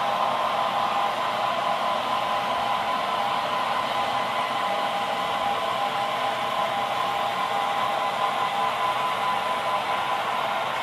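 Sound decoders in HO-scale EMD GP7/GP9 model locomotives playing diesel engine sound through small speakers: a steady, hissy drone with a held tone in the middle.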